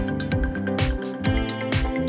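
Background music with a steady beat: low drum hits about twice a second under sustained tones and cymbal-like hiss.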